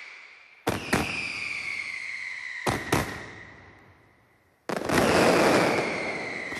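Mascletà firecrackers: two pairs of sharp bangs about two seconds apart, each followed by a falling whistle that fades away. Then, about two-thirds of the way in, a sudden dense, continuous barrage of firecrackers begins.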